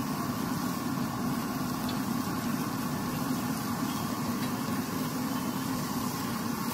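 Steady low hum with a broad hiss, even throughout, from the running food stall and its busy street. No separate knife strokes stand out.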